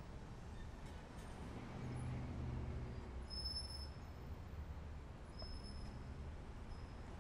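Faint, steady low rumble with a few brief, thin high tones over it.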